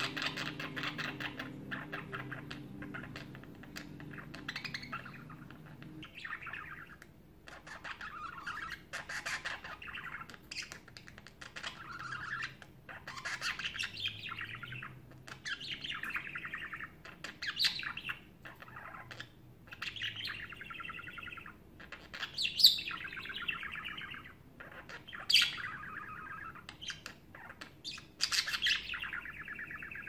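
Male budgerigar singing its chattering warble in phrases of a second or two with short breaks, the courtship song sung to females. Two sharp, high squeaks stand out about three quarters of the way through.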